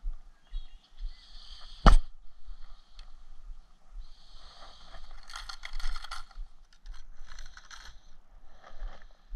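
Hands working fishing line and tackle close to the microphone while tying a knot: rustling and scraping, with one sharp click about two seconds in, the loudest sound.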